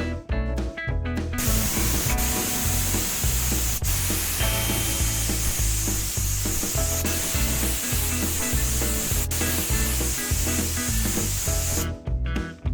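A long, steady spray hiss, starting about a second in and cutting off near the end, with a few faint clicks, over background music with a steady beat.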